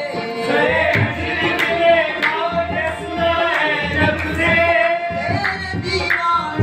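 Qawwali: male voices singing to harmonium accompaniment, with rhythmic hand clapping.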